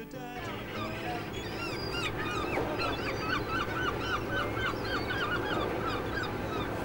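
A flock of gulls calling over one another in a noisy squabble over fish scraps on the water, with a fast run of short repeated calls in the middle.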